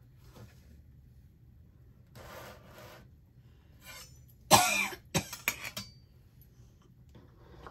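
A person coughing: one loud cough about four and a half seconds in, followed quickly by two or three shorter coughs.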